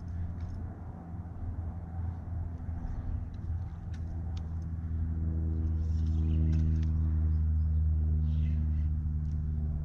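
A boat motor's steady low hum, growing louder about halfway through, with a few faint clicks over it.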